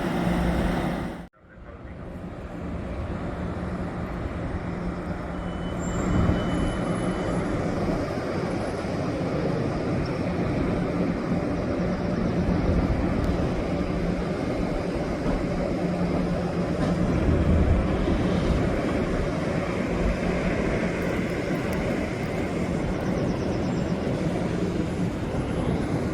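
Steady rumble and hum of a diesel passenger locomotive running at the platform. The sound cuts out abruptly about a second in and fades back up.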